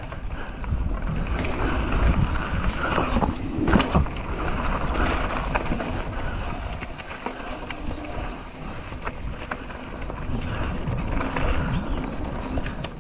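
Wind rumbling on the microphone over the rolling and rattling of a mountain bike ridden along a dirt trail, with scattered clicks and a louder knock about four seconds in.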